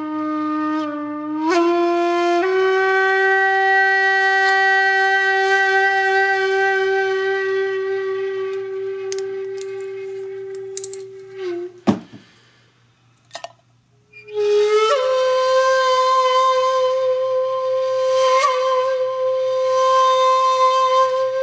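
Background music: a solo wind instrument playing long, slow held notes. A low note rises twice in the first few seconds and is held for about nine seconds, then falls away. After a short knock and a brief pause about halfway, a higher note is held with a wavering vibrato near the end.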